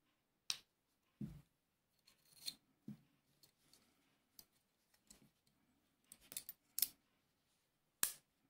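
Small metallic clicks and clinks of a steel miquelet flintlock's parts being handled and worked with a screwdriver: about half a dozen sharp clicks, with a duller knock about a second in and faint handling rustle between them.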